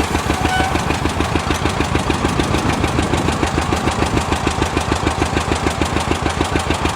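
1957 John Deere propane two-cylinder tractor engine running steadily under load with an even, rapid pulsing beat as it pulls a hay rake.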